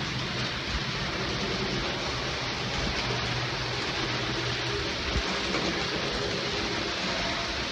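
Several N-scale model trains running on the layout: a steady rushing whir of small motors and wheels on track, with a faint low hum underneath.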